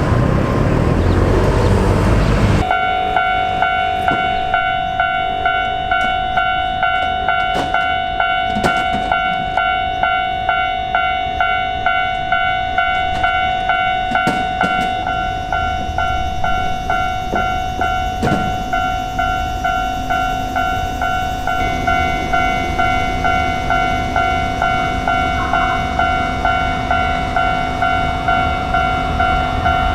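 Electronic warning bell of a Japanese railway level crossing, ringing in a steady, even rhythm of about two strokes a second. It starts abruptly about three seconds in, cutting off loud, even traffic-like noise. A second, higher tone joins the ringing about two-thirds of the way through.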